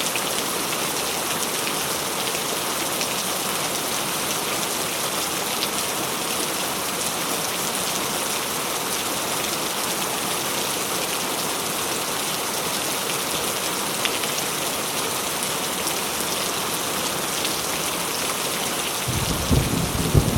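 Heavy rain pouring down in a steady hiss. About a second before the end, a low rumble of thunder begins.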